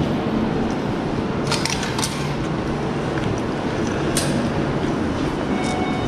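Steady low rumble and hiss of a train station concourse, with a few light clicks about one and a half to two seconds in and again around four seconds in.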